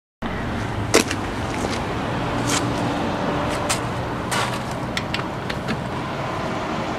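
Several light clicks and knocks from a torque wrench and its socket being handled and fitted onto a wheel's lug nut, with footsteps on gravel, over a steady outdoor background hum; the sharpest knock comes about a second in.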